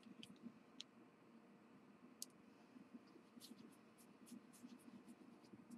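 Near silence, with faint soft rubbing and about a dozen small scattered clicks as Gelatos crayon colour is blended across paper.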